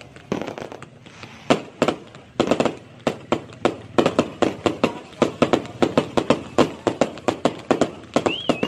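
Aerial fireworks bursting: a few scattered bangs, then from about four seconds in a fast run of sharp cracks, several a second. A short wavering whistle comes near the end.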